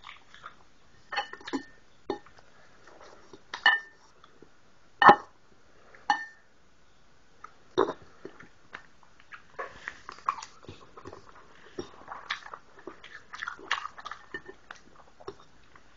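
Someone eating scrambled eggs from a plate: cutlery clinks sharply and irregularly against the plate, with chewing in between. The clinks are fewer and louder at first, then come thick and small in the second half.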